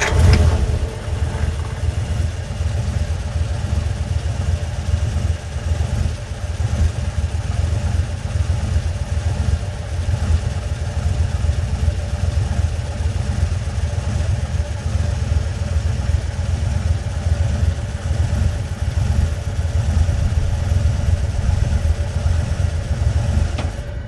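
Old truck engine running steadily, a dense, rapidly pulsing low engine sound that starts abruptly.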